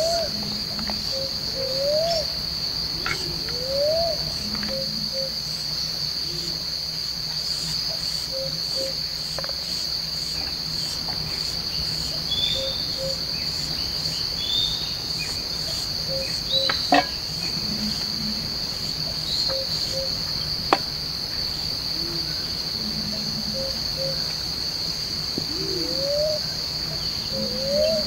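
Steady, high-pitched drone of a forest insect chorus, crickets or cicadas. Over it, a short low rising call repeats about every two seconds at the start and again near the end, and two sharp clicks come about two-thirds of the way through.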